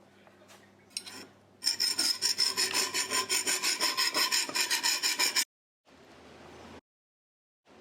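Rapid rasping strokes, about eight a second, of a part of an antique hand-cranked grinder being abraded by hand during restoration. The strokes stop abruptly, followed by a fainter stretch of rubbing.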